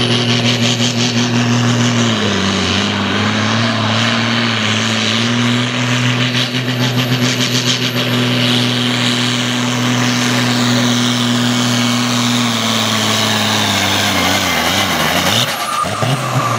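Tractor-pulling farm tractor's diesel engine held at high revs under full load as it drags the weight sled, its pitch dipping briefly about two seconds in. Near the end the revs fall away as the pull ends.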